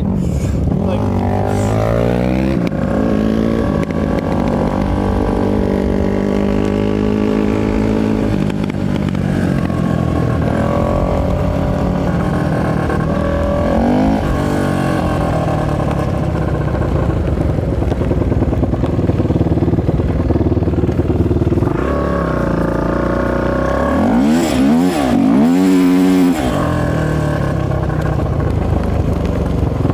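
A 450cc single-cylinder off-road engine running hard under a rider, revving up and down as the throttle opens and closes. About 24 seconds in comes a quick run of sharp blips up and down.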